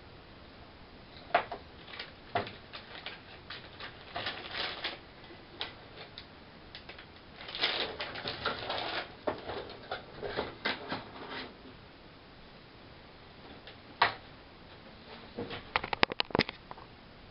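Handling noises: scattered sharp clicks and taps, then a stretch of crinkling plastic as an IGBT module is wrapped in an anti-static bag and packed into a foam-lined box. A single sharp knock and then a quick run of clicks follow near the end.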